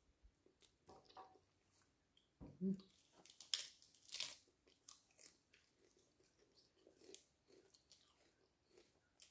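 Faint chewing and mouth sounds of a person eating. A few sharper crunchy bites come about three to four seconds in.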